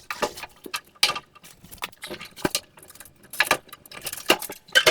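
Irregular metallic clinks, taps and rattles of a dryer's drum and sheet-metal cabinet being handled as the belt is worked off the motor shaft to free the drum, with a louder rattle starting near the end.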